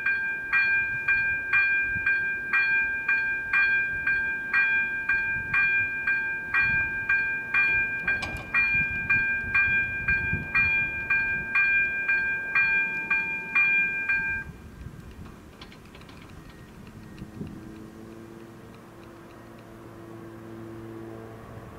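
A bell rings in rapid, even strikes, about two and a half a second, then stops about two-thirds of the way through. A fainter low hum follows.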